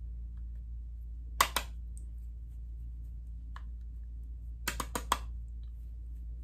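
Light hard clicks of a makeup brush tapped against a plastic powder compact: two close together, then a quick run of four about three seconds later, over a steady low hum.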